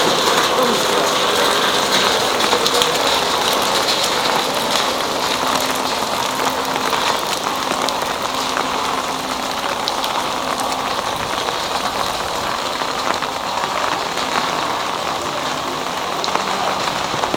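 Steady rain falling, with a faint steady low hum beneath it.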